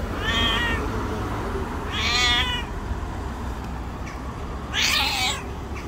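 White cat meowing three times, about two seconds apart, the third call rougher and more breathy than the first two.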